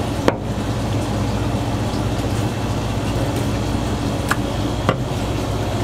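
Steady low machine hum, with three sharp clicks of a knife on a plastic cutting board, the first just after the start and two more near the end.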